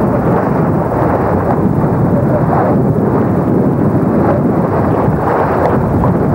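Strong wind rumbling on the microphone over the rush of a rough sea, swelling a few times.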